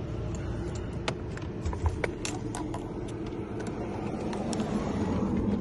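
Scattered light clicks and taps, irregular, over a steady low rumble of street traffic.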